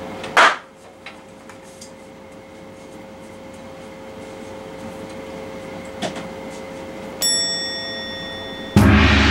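A small party popper going off once with a sharp pop, the only thing the trap rigged to the stove switch fires instead of a big bang. A steady room hum follows, then a chime sound effect rings just after seven seconds and a loud burst of edited sound-effect music starts near the end.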